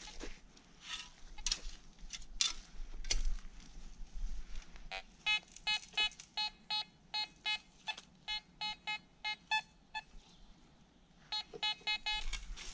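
Fisher F22 metal detector sounding a target signal: a run of short beeps, all at the same pitch, about three a second, starting about five seconds in. The beeps break off briefly and start again near the end, marking metal under the search coil. Before the beeps there are a few scattered crackles and knocks.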